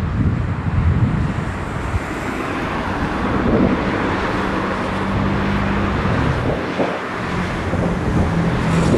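Steady jet noise from a McDonnell Douglas MD-82's two rear-mounted JT8D turbofans as the airliner lands and rolls out, with wind buffeting the microphone.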